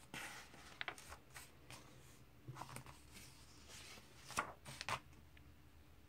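Glossy comic book pages rustling and crackling as they are handled and turned. There are several separate rustles, the loudest near the end.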